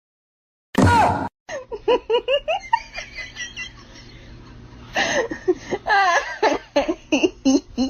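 A person laughing in rapid repeated bursts, louder from about five seconds in, after a short loud cry about a second in.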